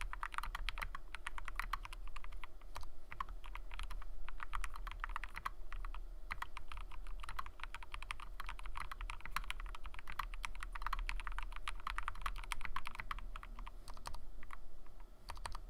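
Continuous fast typing on a mechanical keyboard with Gateron Ink Black linear switches lubed with Krytox 205g0, in an aluminium 65% case with PBT keycaps, giving a steady stream of keystroke clacks with brief pauses.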